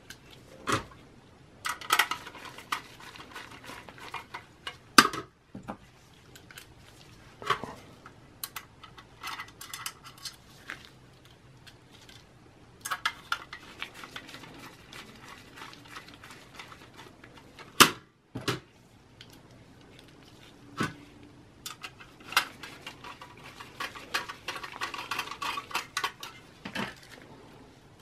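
Phillips screwdriver driving small screws into a metal drive caddy holding a 2.5-inch solid state drive, with light metallic clicks, fast runs of small ticks and clinks from the sheet-metal caddy being handled. Two sharper knocks stand out, about five seconds in and again past the middle.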